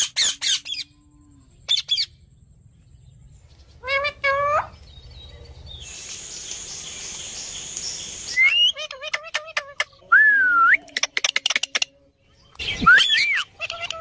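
Indian ringneck parakeets calling in several loud bursts of short, shrill squawks and rapid clicking chatter. The bursts come at the start, about four seconds in, from about eight and a half to twelve seconds, and again near the end, with a few seconds of steady hiss in between.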